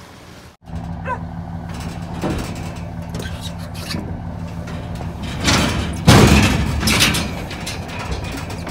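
Steady low hum of an idling truck engine, with loud metallic clanks and rattling from a steel livestock trailer's gates and panels about five to seven seconds in.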